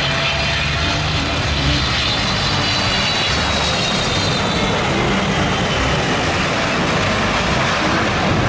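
Twin-engine widebody jet airliner landing: a steady jet-engine roar with a faint high whine that slowly falls in pitch.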